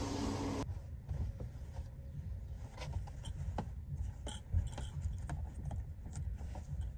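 A half-second of steady humming room noise cuts off suddenly, followed by light rustling and scattered small clicks as a fabric sheet is handled and put up on a wall, over a low rumble.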